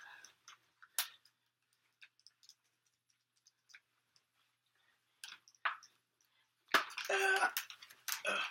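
Faint, scattered clicks and ticks of handcuffs being handled, a few at a time. In the last two seconds a louder voiced sound, like a grunt or exclamation, comes in.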